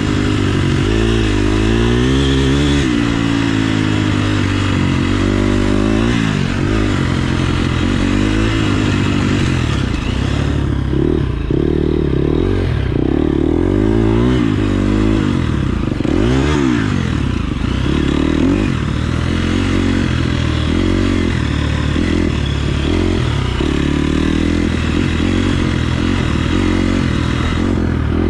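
KTM 350 SX-F single-cylinder four-stroke motocross engine being ridden hard, its pitch rising and falling again and again as the throttle is opened and shut.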